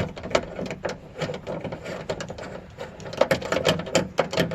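Ratchet wrench with a 10 mm socket clicking rapidly as it backs out a trunk latch bolt, the clicks coming faster and louder about three seconds in.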